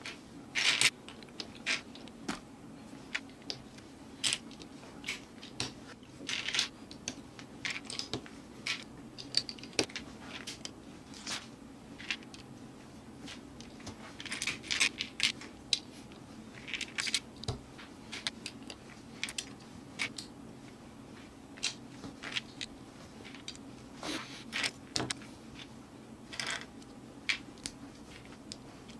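Plastic LEGO bricks clicking and clattering in irregular short bursts as pieces are picked out of a loose pile and snapped together by hand.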